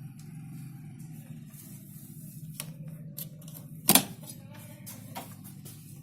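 A steady low hum under scattered small clicks and taps, with one sharp, louder click just before four seconds in.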